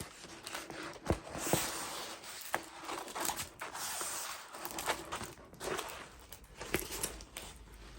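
Plastic and paper packaging rustling and crinkling as it is handled, with scattered light clicks and taps.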